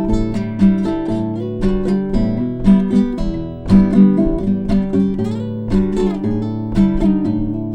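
Instrumental break in a song: acoustic guitar strumming chords in a steady rhythm, with no singing.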